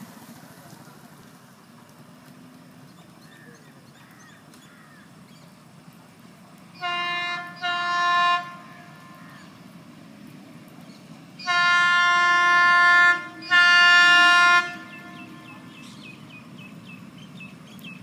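Indian Railways locomotive horn sounded by a train approaching from a distance: two short blasts, then two longer, louder blasts a few seconds later. Under the horn is a low steady rumble.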